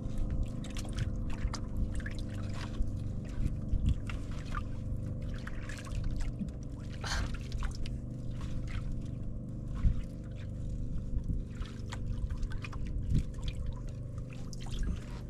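Water trickling and splashing, with scattered small clicks and knocks and a louder splash about seven seconds in, over a steady low hum.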